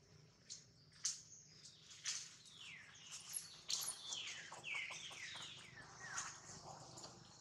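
A newborn macaque squealing: a run of high-pitched calls, each falling in pitch, with a few sharp clicks between them.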